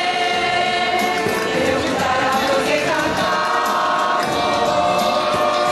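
A choir of many voices singing together, holding long notes and moving to new notes about three seconds in.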